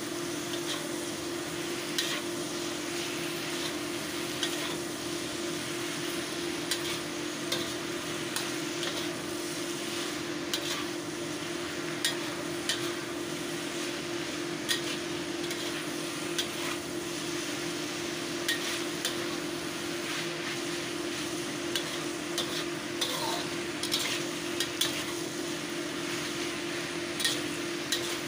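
Flat noodles and vegetables sizzling in a steel wok as they are stir-fried, with the spatula scraping and clicking against the wok at irregular moments throughout. A steady low hum runs underneath.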